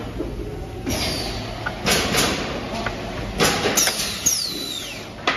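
Wood pallet nailing machine working: sharp clanks and knocks over a steady low hum, with high squeals that fall in pitch, the clearest about four seconds in.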